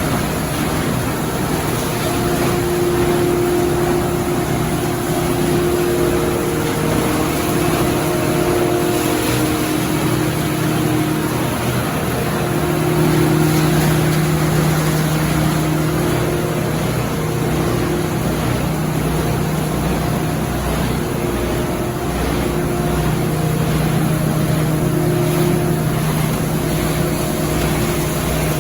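Production-line machinery running: a steady mechanical din with a strong low hum and higher steady tones that come and go every few seconds.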